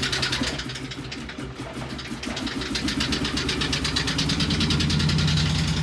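2012 Ford Expedition's 5.4 L V8 running rough and noisy with a rapid, even knocking rhythm, a sign of a couple of misfiring ('unhappy') cylinders. It drops in level about a second in, then builds to its loudest near the end.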